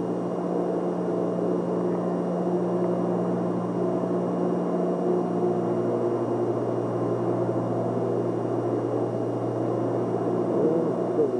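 Steady low mechanical hum made of a few held tones. The higher of the two strongest tones drops out about six seconds in.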